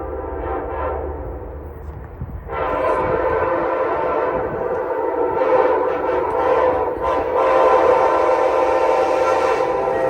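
Amtrak ALC42 Charger locomotive's air horn sounding a chord: fainter at first, then loud long blasts from about two and a half seconds in, broken briefly twice.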